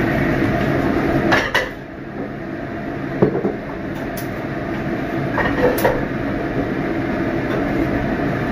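A nonstick frying pan being handled and set on a gas hob: a handful of sharp metallic knocks and clanks over a steady low hum.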